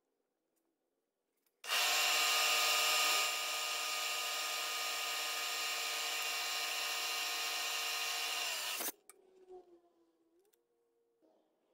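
Machine spindle turning a small twist drill into white plastic: a steady motor whine that starts abruptly about two seconds in and is a little louder for its first second and a half. It stops suddenly near the end.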